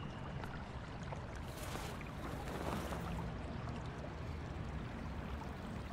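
Steady faint wash of running or lapping water, a continuous watery hiss with no distinct events.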